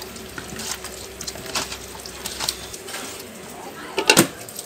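Garden snail shells clicking and scraping against each other and the plastic basin as hands rub them in lime juice, in short irregular clatters. A brief louder sound near the end.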